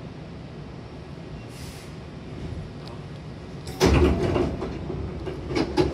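Hankyu train car's double sliding doors opening. Over a steady low hum there is a short hiss about a second and a half in. Nearly four seconds in comes a sudden loud thud and rush as the door panels slide apart, followed by several sharp rattles.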